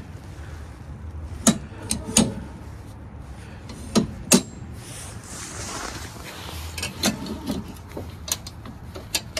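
Sharp metal clicks and clunks, several spread through, from the John Deere Z225 zero-turn mower's motion-control levers being swung and latched into the park position.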